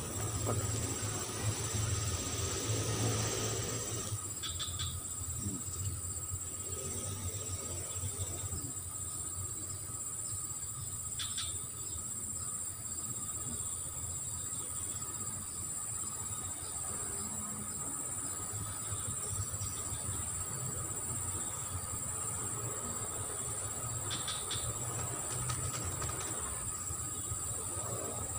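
Steady, high-pitched chorus of insects with an even pulsing rhythm. A rustling noise in the first few seconds, and a few short faint clicks later.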